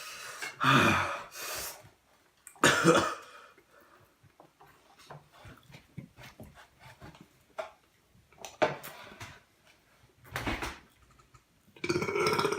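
A person coughing and clearing the throat in several short, harsh bursts a few seconds apart, with faint small clicks between them.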